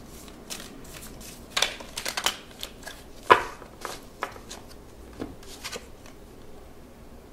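A tarot deck shuffled by hand, with cards dealt out onto the table: a run of quick card snaps and soft slaps, the loudest a little over three seconds in, thinning out over the last couple of seconds.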